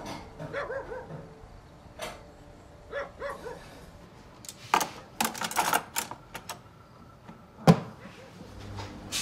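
A dog barking in two short runs of a few barks each, then a burst of sharp cracks and one loud bang.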